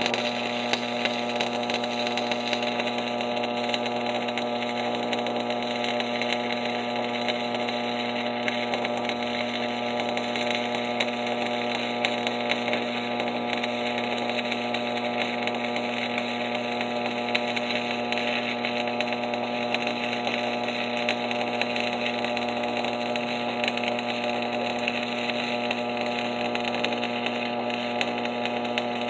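Shielded metal arc (stick) welding with a 3/32-inch 7018 electrode on a Miller Thunderbolt XL transformer welder: the arc's steady crackling sizzle over the welder's hum. It begins right at the start and runs without a break.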